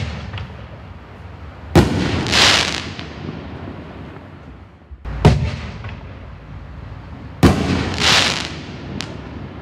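Black Cat Diablo 24-shot 60-gram canister shell cake firing shells into the air: three loud booms, about two to three seconds apart, each followed by a loud hissing, crackling rush, and a smaller crack near the end.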